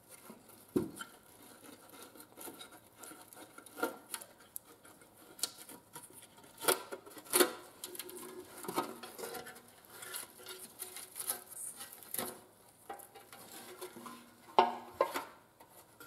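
Rusty steel motorcycle seat pan being handled and worked free of its old, crumbling foam: irregular knocks and clinks of the metal pan, with scraping and rustling between them. The loudest knocks come about halfway through and again near the end.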